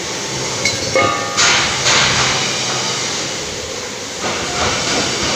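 Steady workshop machinery noise, with a brief high squeal about a second in and short hissing bursts just after.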